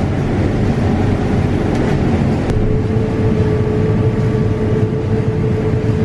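Combine harvester with a 45-foot head cutting soybeans, heard from the cab: a loud, steady rumble of engine and machinery. A steady hum joins about two and a half seconds in.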